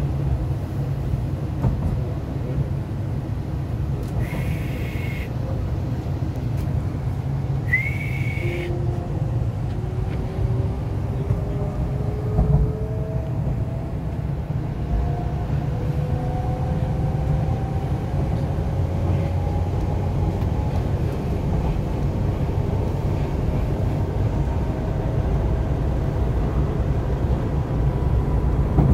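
Inside a moving MTR East Rail Line R-Train electric train: the steady rumble of wheels on the track, and two short high whistle tones about four and eight seconds in. After that, the traction motors' whine climbs slowly in pitch as the train picks up speed.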